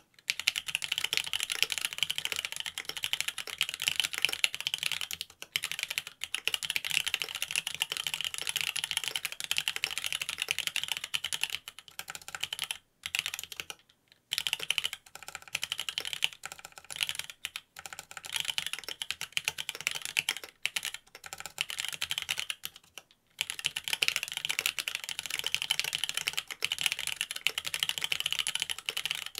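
Fast, continuous typing on a Mont Cervin custom mechanical keyboard fitted with Cherry linear switches (Wyse Black stems in Hyperglide Black housings, 70 g springs) on a carbon fiber plate, with unlubed stems and no case dampening. A dense stream of key clacks, broken by a few short pauses, the longest about 13 seconds in.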